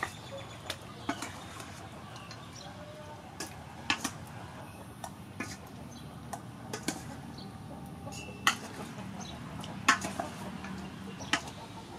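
Metal spoon clinking and scraping against a stainless steel bowl as raw chicken wings are stirred with egg: irregular sharp clinks, a few of them louder.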